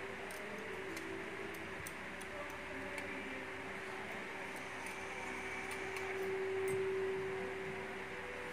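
Faint, scattered metallic ticks of a hobby-knife tip picking at a steel BGA reballing stencil, over a steady fan-like hum whose tone swells about six to seven seconds in.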